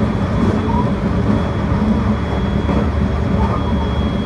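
Inside a moving electric commuter train: a steady low rumble of the wheels on the track, with a thin steady high whine over it.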